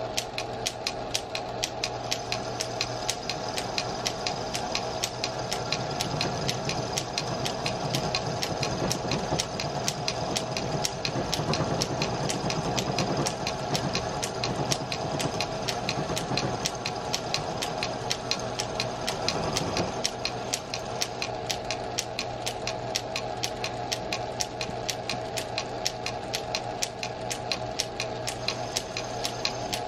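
Small metal lathe running with its chuck spinning, a steady hum with a rapid, even ticking, while the tool turns the threads off a bolt. From about six seconds in, a rougher cutting noise joins the hum and stops abruptly about twenty seconds in.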